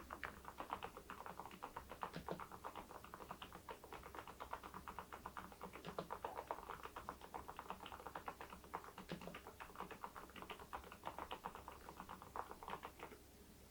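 Steady, fast typing on an Epomaker TH80 V2 Pro mechanical keyboard fitted with Kailh Deep Sea switches and ceramic keycaps: a quick run of soft key clicks that stops just before the end.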